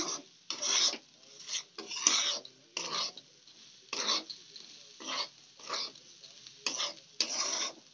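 Flat metal spatula scraping and stirring dry, oil-roasted barnyard millet (varai) with potato pieces in a steel kadhai: a series of short gritty scrapes, irregular, about one or two a second, as the salt is mixed through.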